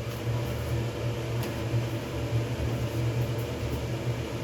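A steady low mechanical hum, with a couple of faint clicks about a second and a half and three seconds in.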